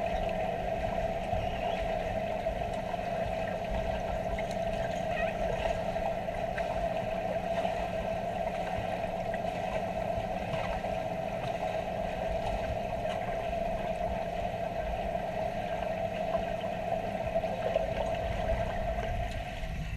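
Steady underwater hum in a swimming pool, one even mid-pitched tone over a lower drone, with faint scattered clicks.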